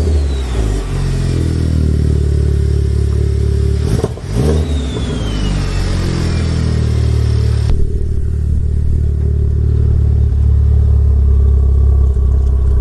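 A turbocharged Honda Civic Type R (FK8) 2.0-litre four-cylinder running between revs. About four seconds in, a short rev with a burst of turbo flutter, and a high whistle that falls in pitch over a couple of seconds as the turbo spins down. The uploader puts the whistle down to turbo spool with a catless downpipe. The engine then idles steadily.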